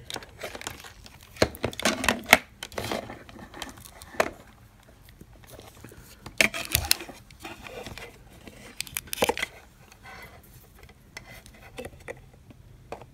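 Close-up handling noises: irregular crinkling, rustling and sharp clicks as hands move multimeter probe leads and the opened plastic case and pouch battery of a power bank. The loudest clicks come in a cluster about two seconds in and again around six and nine seconds.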